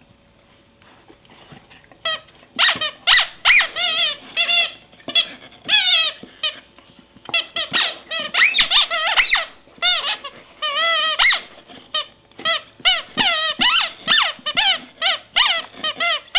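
A squeaky dog toy being chewed by a bull terrier. After about two quiet seconds the squeaker goes off over and over in quick runs of short squeals, each one wavering in pitch.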